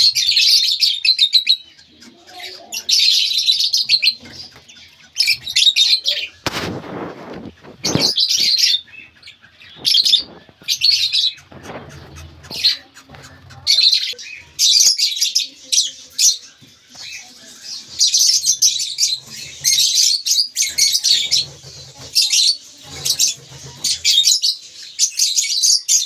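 Lovebirds in a clay-pot nest giving rapid, raspy chirps in repeated bursts every second or two. A short rustling scrape sounds about seven seconds in.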